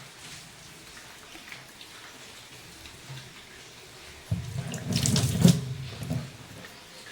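Water running for about two seconds, starting a little past four seconds in, over a faint steady hiss.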